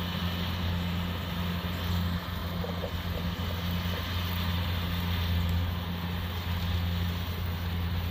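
Kubota DC-70 Plus rice combine harvester running steadily as it cuts rice, its diesel engine giving an even, unbroken low drone.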